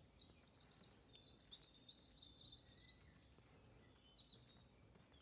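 Near silence: faint room tone, with some faint high chirping in the first few seconds and a single light click about a second in.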